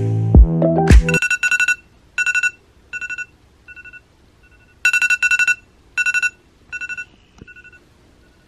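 Background music with a heavy beat stops about a second in. A high electronic trill follows, ringing out in quick repeated bursts: each run of bursts fades away, then starts loud again about four seconds in.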